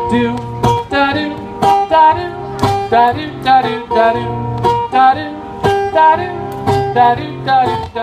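Acoustic guitar strummed in a steady rhythm, about two strums a second, with a voice singing a simple melody over it.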